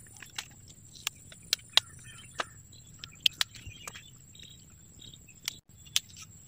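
Irregular crisp snaps and tearing clicks as leaf bases and sheaths are peeled and pulled off an Aglaonema stem cutting, with a steady high-pitched insect trill behind them.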